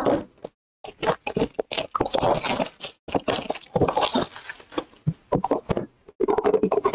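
Cardboard trading-card hobby box being cut open and handled by hand: irregular rustling, scraping and clicking of cardboard and wrapping.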